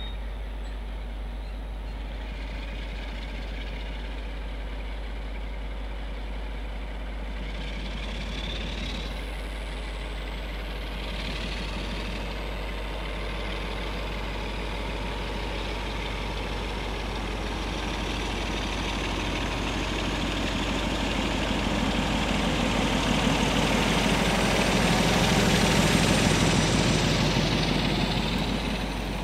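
Two Class 47 diesel-electric locomotives with Sulzer twelve-cylinder engines running as they haul a freight train slowly past. The engine sound grows steadily louder, is loudest near the end as the leading loco goes by, then drops off.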